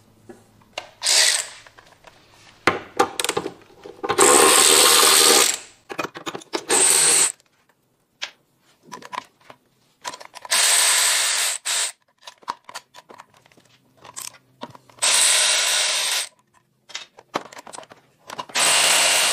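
Cordless power tool running in about six short bursts, each up to a second and a half long, as it undoes the driveshaft's hanger bearing bolts and rear driveshaft bolts. Small metallic clicks and clinks of the bolts and socket come between the bursts.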